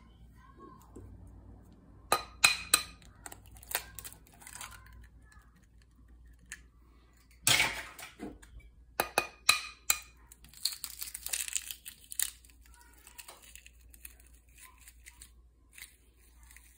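Eggs being cracked on the rim of a bowl and broken open, one after another: sharp taps of shell against the bowl followed by the crackle of the shells being pulled apart, several times.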